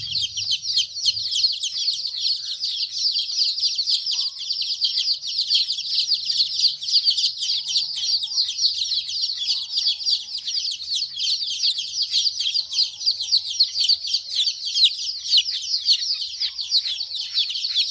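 A crowd of young chicks (AHHC Highgrowth chicks) peeping nonstop. Many short, high, falling peeps overlap into a steady chorus.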